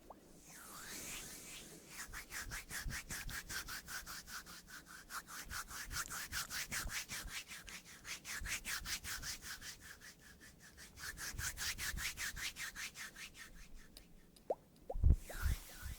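Fast, even rubbing strokes, several a second, as of something being scrubbed back and forth across a surface close to the microphone. The strokes start about two seconds in and stop about two seconds before the end.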